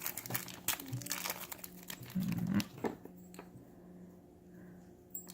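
Plastic packaging crinkling and rustling as a blind-box figure and its parts are unwrapped by hand, busiest in the first three seconds and then dying down.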